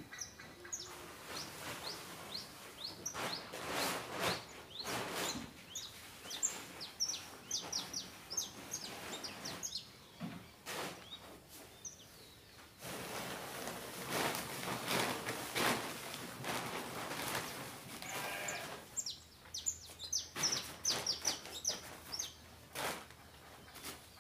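Small birds chirping in quick repeated calls, over bursts of rustling noise and a longer noisy stretch from about halfway, as loose material is tipped from a plastic bucket onto the edge of a plastic tarp.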